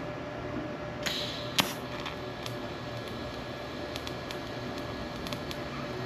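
TIG welding on stainless steel: a steady low hiss with a faint held tone, a short hissy burst about a second in and a sharp click just after.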